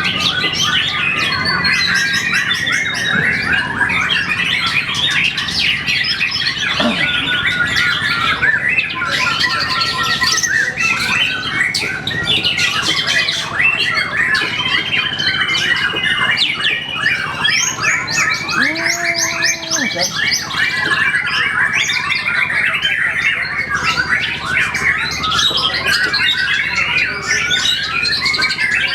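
Caged songbirds singing together: rapid, varied chirps, trills and squawks overlapping without pause. About two-thirds of the way through, a short steady low tone sounds beneath them for about two seconds.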